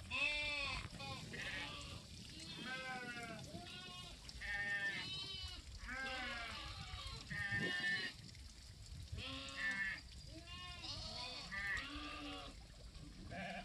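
A large flock of sheep and goats bleating, about a dozen calls one after another, some overlapping and some high-pitched.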